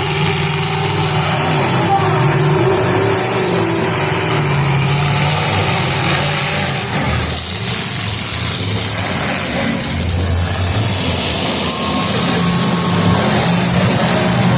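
Demolition derby cars' engines running and revving, their pitch rising and falling over a steady din.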